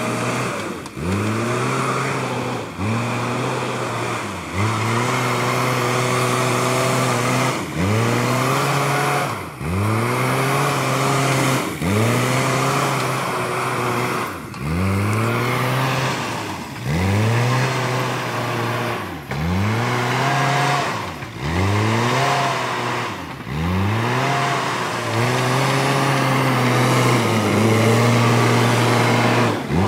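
JCB 3DX backhoe loader's diesel engine revving over and over while working. Its note drops sharply and climbs back roughly every two seconds.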